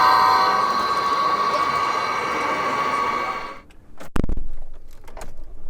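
Locomotive horn sounding a steady multi-tone chord that cuts off suddenly about three and a half seconds in, followed by a few sharp knocks.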